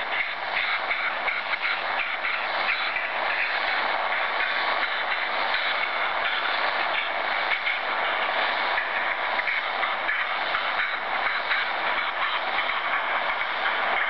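An unidentified shortwave signal received on 8710 kHz in SSB mode and played through a Tecsun PL-600 receiver's speaker: a steady hissing noise with a fast, uneven flutter, like a leaky gas valve or breathing sped up.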